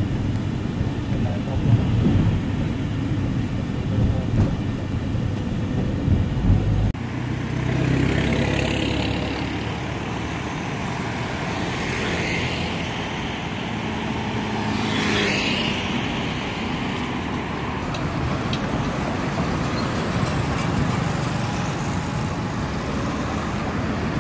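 Low road and engine rumble inside a moving van's cabin, which cuts off suddenly about seven seconds in to street traffic: cars passing one after another, a few of them swelling up loudly as they go by.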